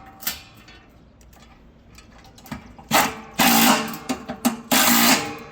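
A power driver running screws into a Speed Queen washer's transmission base in short bursts, the two longest about half a second each near the end, with clicks and a knock between them as the screws are tightened down.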